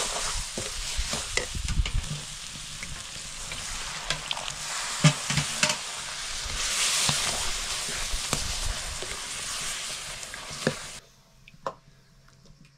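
Food frying and sizzling in a cooking pan while it is stirred, with short knocks and scrapes of the stirring spoon against the pan. The sizzle cuts off suddenly near the end.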